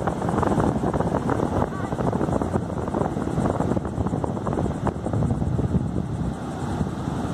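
Wind buffeting the microphone in heavy gusts over the steady wash of rough surf breaking on the beach.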